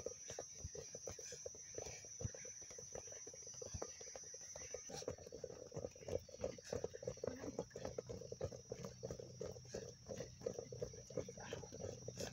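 Outdoor ambience of a steady high insect buzz, which drops in level about five seconds in, with many scattered soft taps and thuds throughout.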